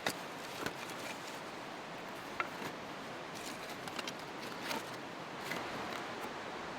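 Campfire kindling starting to catch, giving scattered, irregular sharp crackles and snaps over the steady rush of a nearby river.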